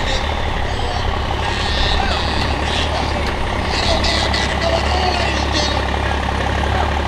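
Diesel engine idling steadily, with crowd voices mixed in.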